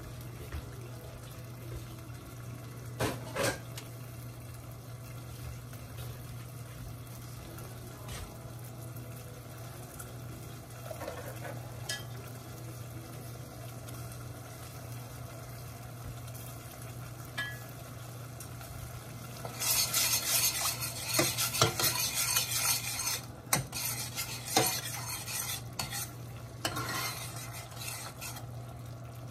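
Tomato sauce simmering in a stainless steel saucepan on a gas stove, under a steady low hum. About two-thirds of the way through, a metal spoon stirs the sauce for a few seconds, scraping and clinking against the pan, and a few more clinks follow near the end.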